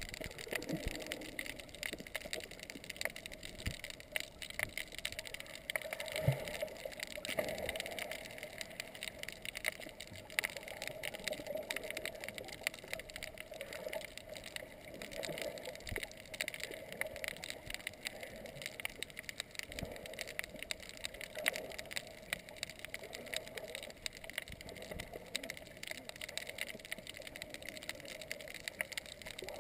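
Underwater ambience heard through a GoPro's waterproof housing: a steady, muffled wash of water with dense fine crackling and a few soft thumps.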